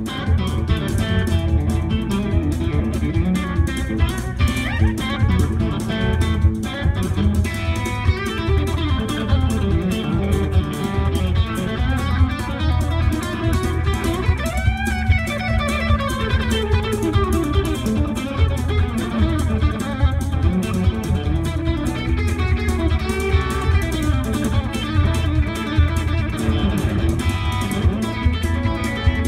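Electric guitar played live in a country chicken-pickin' style over a backing track with a steady drum beat and bass. About halfway through the guitar swoops up and back down in pitch.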